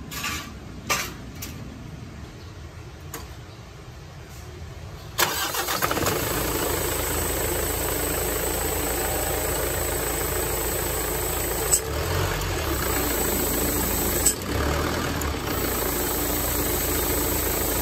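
Mitsubishi Fuso Canter truck's diesel engine starting up suddenly about five seconds in, then running steadily at idle, with two sharp clicks in the later part.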